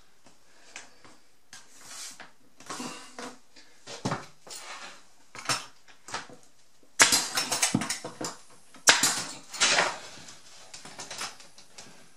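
A pneumatic 18-gauge brad nailer fires about three times into a cedar wainscoting board, each shot a sharp pop, the first about seven seconds in and two more a couple of seconds later. Light knocks and rustling come from handling the board and the tool in between.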